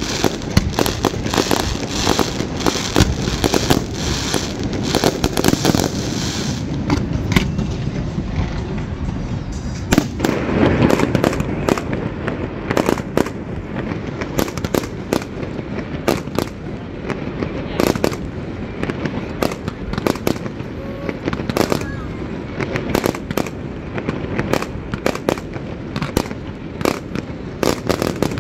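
A fireworks display: a dense, rapid run of bangs and crackling shell bursts going off continuously, with a loud cluster of bursts about ten seconds in.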